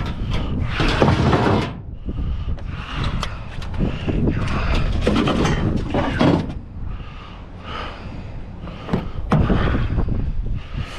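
Scrap metal being handled and shifted in a pickup bed: irregular clanks, knocks and scraping, over a steady low rumble of wind on the microphone.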